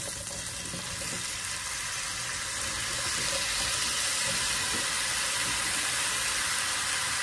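Diced apples sizzling in hot butter caramel in a frying pan as they are tipped in. The sizzle grows louder over the first few seconds, then holds steady.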